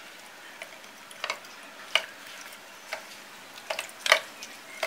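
A hand mixing marinated fish pieces in a metal bowl, making irregular sharp clicks, about eight in all, the loudest near the end.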